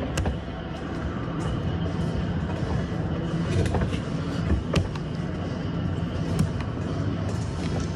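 A steady low workshop hum with a few sharp clicks and knocks as a rubber J-channel seal is worked by hand and tool over the edge of windshield glass.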